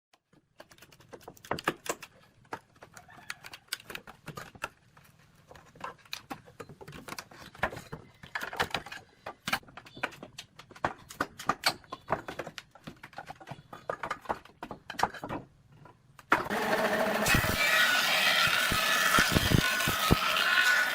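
Scattered light knocks and clicks, then about sixteen seconds in a power tool switches on and runs loud and steady.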